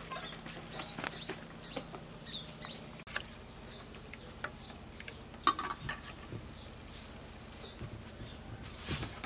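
Small birds chirping in quick short notes, thickest in the first few seconds, with scattered light clinks and scrapes of a metal spoon stirring batter in a stainless steel bowl; one sharper clink about five and a half seconds in.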